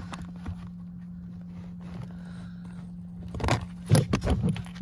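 Plastic clicks and knocks of a wiring connector being handled and plugged into a small interior light housing in a Tesla Model 3's trim: one click at the start, then a cluster of clicks from about three and a half seconds in, over a steady low hum.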